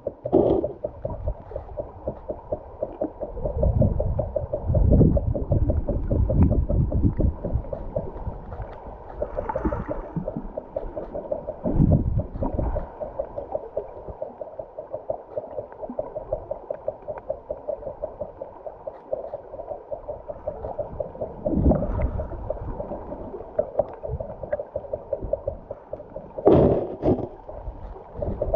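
River water heard underwater: a muffled, steady gurgle with a fast fine crackle, broken by several low surges of moving water, the sharpest near the end.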